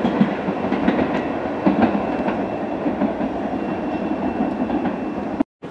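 Bombardier R62A subway train running on the track, a steady rumble with irregular clacks and knocks of the wheels over rail joints. The sound cuts off abruptly near the end.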